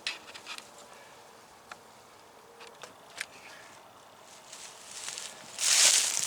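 A few scattered light clicks and ticks, then rustling and crunching from about four seconds in that gets much louder near the end, like movement through dry leaves and brush.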